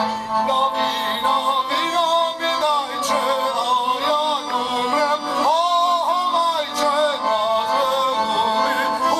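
Folk band music: violins and accordions playing a lively tune together.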